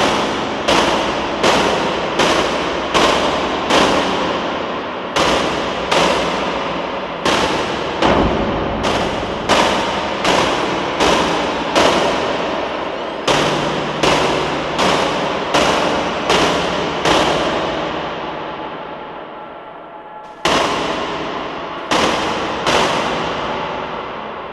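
Dark ambient music track: a fast run of sharp, echoing bangs, about one every three quarters of a second, each trailing off in a long reverberant tail over a faint held chord. The bangs stop for a couple of seconds near the end, then three more come.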